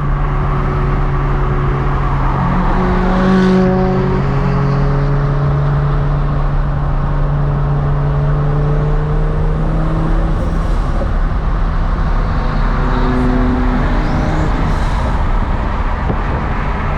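Car engine running at steady cruising revs: a steady low drone over road noise, with brief higher engine notes coming and going.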